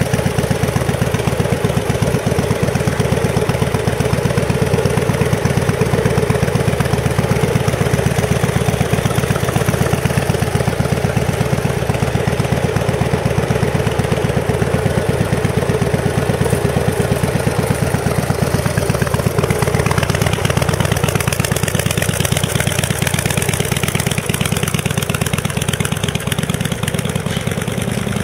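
Harley-Davidson 1340 cc Evolution air-cooled V-twin running steadily at idle, a dense, even run of exhaust pulses at a constant level.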